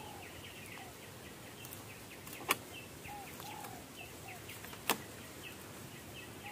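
Birds calling over and over in the background, a short high chirp alternating with a lower rising-and-falling note, and two sharp snaps about two and a half seconds apart as dry bamboo is broken by hand.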